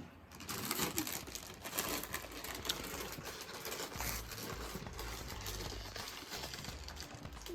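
Footsteps crunching and crackling irregularly over icy ground. A low rumble joins about four seconds in.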